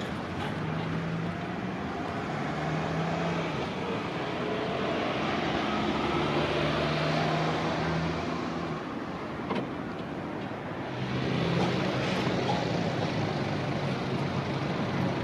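Steady road-vehicle noise: a continuous rush with a low engine hum.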